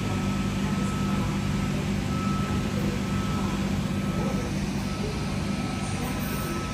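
Comeng V set electric train making a steady low hum with a thin, steady high whine over it.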